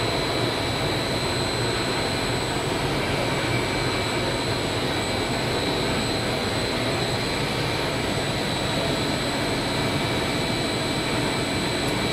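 Blown-film extrusion machine running at production speed: a steady, even machine noise from its blower and Siemens-driven motor, with a thin, high, steady whine over it.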